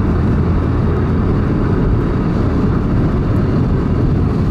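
Steady rumble of a car driving at highway speed: tyre and engine noise with no breaks.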